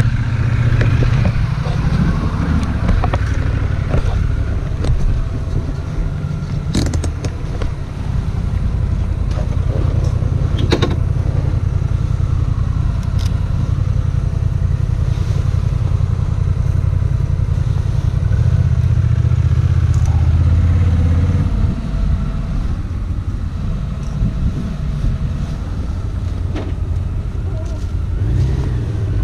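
Aprilia Dorsoduro 750's V-twin engine with an Akrapovic exhaust idling steadily while the bike stands still, running slightly louder for a few seconds about two-thirds of the way through, with a few scattered clicks.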